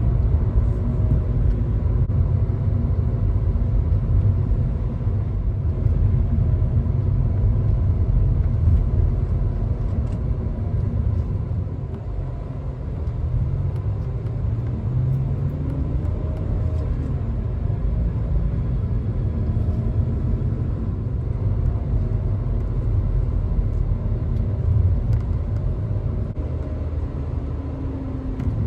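Car driving at road speed, heard from inside the cabin: a steady low rumble of road and engine noise with faint tones that drift slowly up and down.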